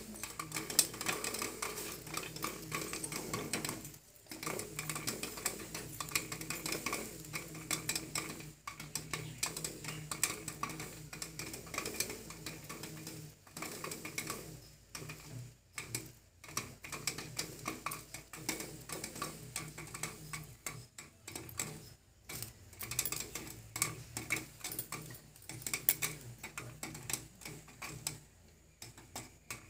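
Popcorn kernels popping inside a closed aluminium pressure cooker: a dense run of irregular pops and ticks against the metal, with a few brief lulls.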